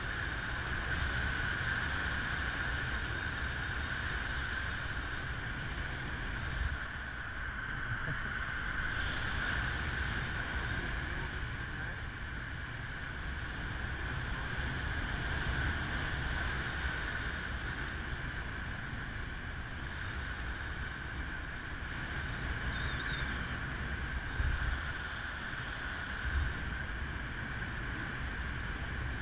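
Airflow buffeting an action camera's microphone in paragliding flight: a steady rush with a low rumble that rises and falls, and a few brief louder gusts.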